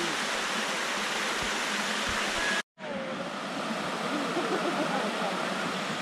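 Steady rush of water from a waterfall cascading over stepped rock ledges. It cuts out abruptly for a split second a little before halfway, then resumes, with faint voices in the background.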